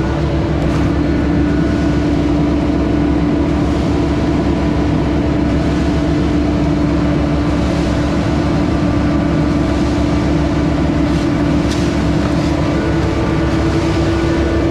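Skid-steer-powered hydraulic concrete pump running steadily under load, its engine and hydraulics making a loud, even drone with a steady hum.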